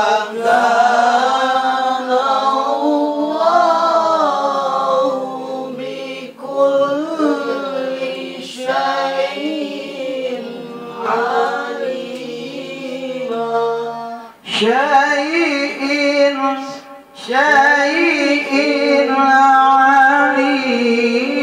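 A man chanting Quranic recitation in a slow, melodic qira'at style: long held notes with wavering ornaments, broken by a few short pauses for breath.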